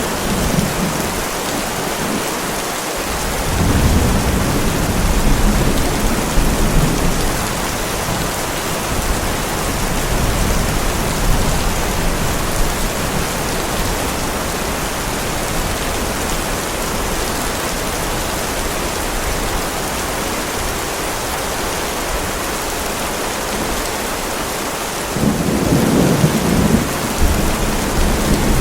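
Heavy rain falling steadily, with rolls of thunder rumbling low twice: a few seconds in and again near the end.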